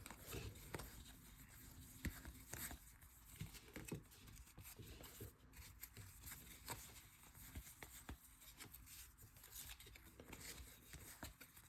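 Faint tearing and rustling of trading-card packaging being opened, with soft scattered clicks and ticks of cards being handled.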